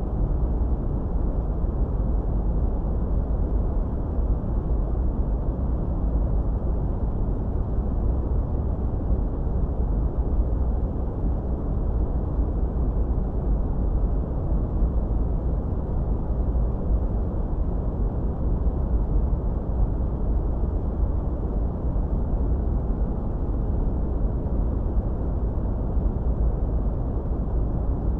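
Steady, deep noise for masking tinnitus: an unchanging low rumble with little hiss on top and no tones or breaks.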